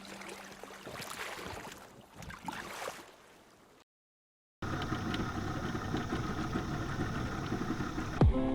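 Boat motor running steadily with an even hum, starting sharply just after a brief dead-silent cut about four seconds in. Before the cut there is a fainter, fading rush of noise with small clicks.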